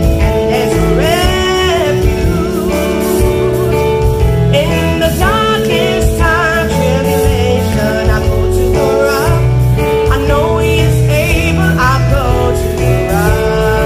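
A woman singing a slow gospel song solo over instrumental accompaniment, her held notes wavering with vibrato.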